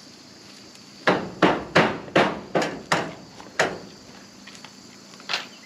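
A hammer striking in a quick run of seven blows, about two to three a second, then one more blow near the end.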